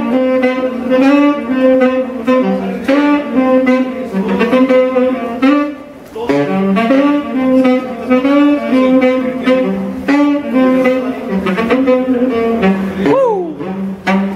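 Tenor saxophone played solo, a jazz line of quickly changing notes. It breaks off briefly about six seconds in, and near the end a note bends down in pitch.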